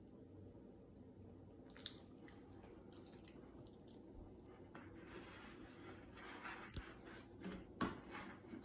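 Faint sticky squelches and clicks of homemade glue slime being kneaded and pulled by hand, growing busier in the second half with a few sharper snaps.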